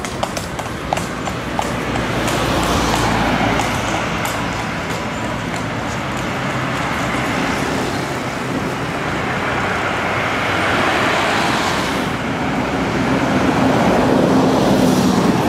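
Street traffic: engines of passing cars and a motorbike running under a steady haze of road noise. The sound swells a few times as vehicles go by.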